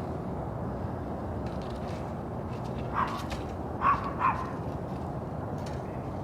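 A dog barking three short times, about three seconds in, over a steady background hum of noise.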